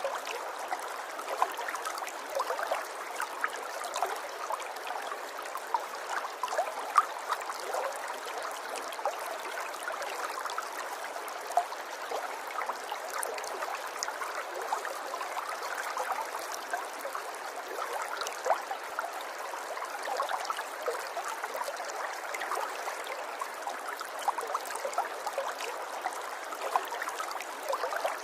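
Shallow river water running and trickling steadily, with many small splashes and gurgles.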